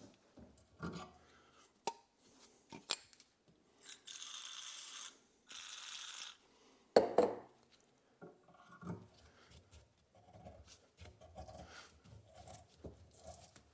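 Two sprays of about a second each from an aerosol can of oil, then a sharp knock. Then a run of soft clicks and scraping as a hand reamer is turned in a tap wrench through a car door-hinge hole.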